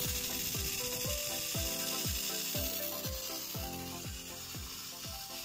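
Handheld nano-mist hair steamer spraying a fine steam mist with a steady loud hiss, over background music with a thumping beat about twice a second.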